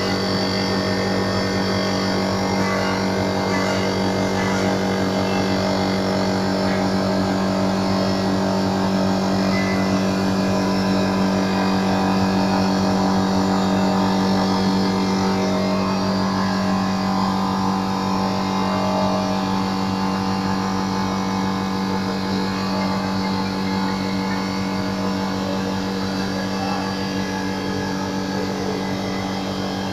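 Cosen CNC315S automatic wood-turning lathe running steadily, a constant motor hum with a strong low tone and a haze of cutting noise above it.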